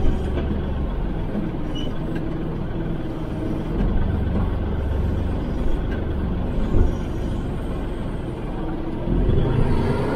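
Kubota L3560 tractor's diesel engine running steadily, with a few brief knocks, the clearest about seven seconds in.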